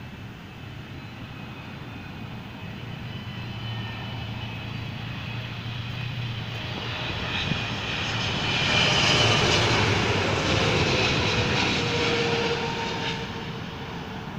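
Boeing 777-300ER's GE90-115B turbofans on landing approach, growing steadily louder as the airliner comes in low, loudest as it passes overhead about nine seconds in, with a high engine whine and a tone that drops slightly in pitch as it moves away.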